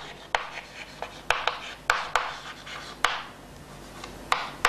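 Chalk writing on a chalkboard: a series of sharp taps as the chalk strikes the board, each followed by a short scratchy stroke.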